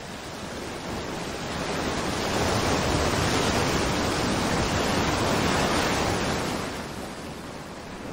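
Ocean surf: a steady wash of waves breaking on a rocky shore. It swells over the first couple of seconds and eases off about seven seconds in.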